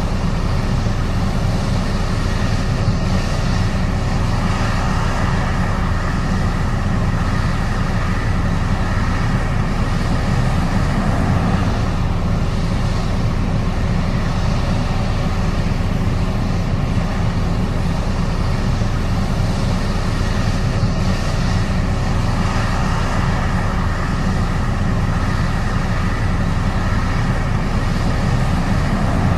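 Combine harvester running steadily in a corn harvest: a constant low engine drone with a faint steady whine above it.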